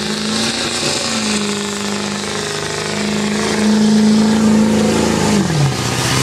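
Pickup truck engine running hard at high revs in a truck pull, holding a steady pitch, then dropping off sharply about five and a half seconds in.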